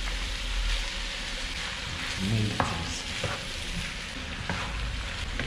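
Tofu, diced tomatoes and chopped vegetables sizzling in hot oil in a frying pan as a spatula stirs them, with a few sharp taps of the spatula against the pan.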